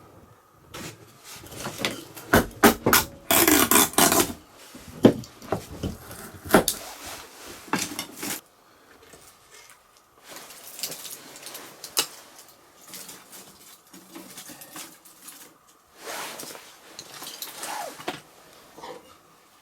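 Irregular knocking and clattering of wood and metal, with scraping strokes, as a fire is laid and lit in a small sheet-metal wood stove. The loudest scraping comes in a dense stretch about three to four seconds in, with quieter rustling and knocks later on.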